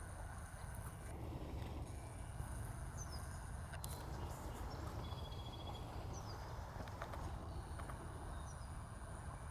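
Open-air ambience: a steady low rumble like wind on the microphone, with a few brief high chirps from small birds, one quick trill past the middle, and a few faint soft clicks.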